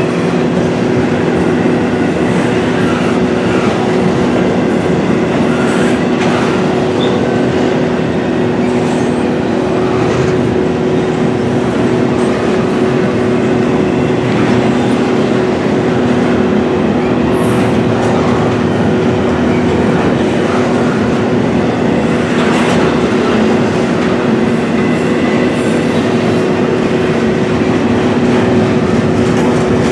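Double-stack intermodal container well cars rolling past at a steady speed. Steel wheels keep up a continuous rumble on the rail, with scattered clicks and clunks and a steady tone running underneath.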